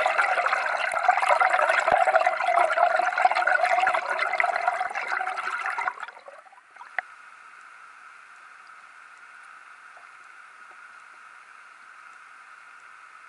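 Water rushing past an underwater camera's housing, heard muffled. It is loud at first, then about six seconds in it drops suddenly to a quieter, steady hiss.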